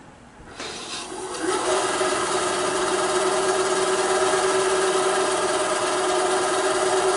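WEN BA3959 9-inch benchtop band saw's 2.8-amp belt-driven motor starting up unloaded, building up to speed over about a second, then running steadily. It is slow to start, which the owner wonders may come from the blade tension being set too tight.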